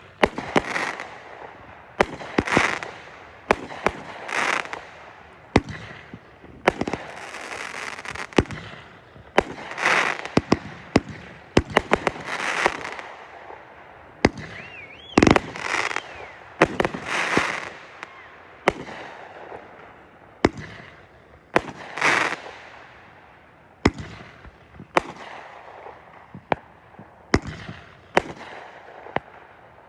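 Consumer fireworks going off in quick succession: a steady run of sharp bangs, many trailed by crackling. A short whistle and the loudest bang come about halfway through.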